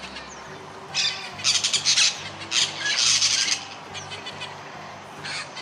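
Parrot squawking: harsh, high-pitched calls in several short bouts, about a second in, around two and three seconds in, and again near the end, over soft background music.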